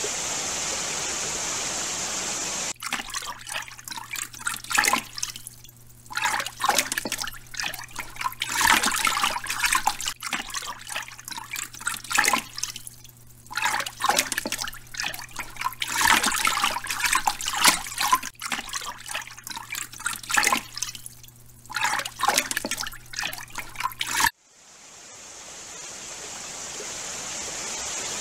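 A steady rush of flowing water, then from about three seconds in, irregular splashing and sloshing of pool water as otters play in it, over a low steady hum. The splashing cuts off suddenly near the end, and the rushing water fades back in.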